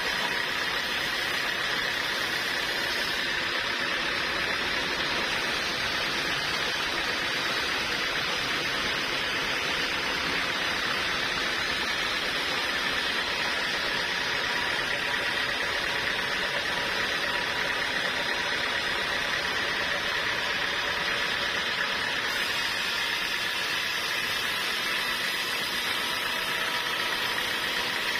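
Sawmill machinery running steadily: a constant mechanical noise with a faint, steady high whine and no break or change.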